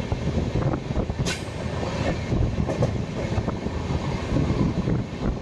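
Moving passenger train (12445 Uttar Sampark Kranti Express) heard from on board: a steady rumble with the wheels clattering over the track. There is a sharp crack about a second in.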